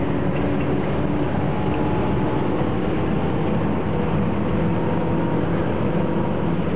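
Car engine droning steadily at speed, heard from inside the cabin, with road and wind noise.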